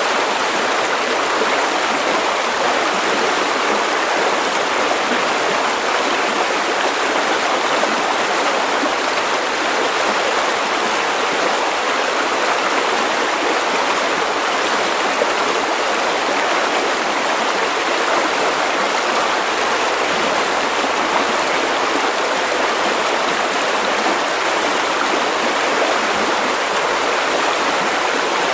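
River water running over stones, a steady even rushing and babbling with no breaks or changes.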